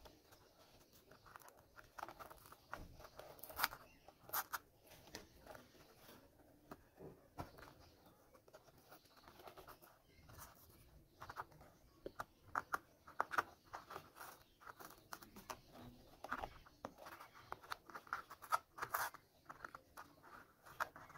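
Paper and foil trim being peeled and torn off a hand-made paper model car's body: faint, short, irregular rips and crinkles.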